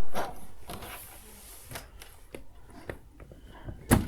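Handling noise from a weather radio being picked up and carried: scattered clicks and light bumps, with one sharp knock near the end.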